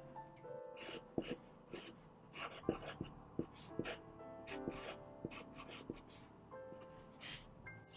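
Pencil scratching across paper in short sketching strokes, over soft piano music.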